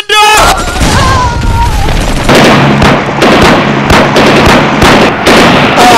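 A man shouts near the start; then, from about two seconds in, rapid gunfire and booms crackle on without a break over a steady low helicopter drone.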